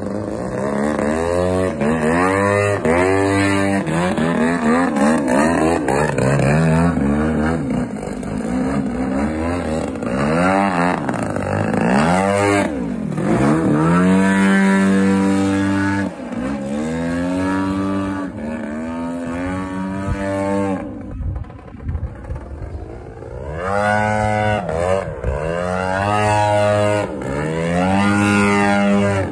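Radio-controlled aerobatic model airplane flying overhead, its engine and propeller drone sweeping up and down in pitch with each pass and throttle change. It drops away briefly about two-thirds of the way through, then comes back.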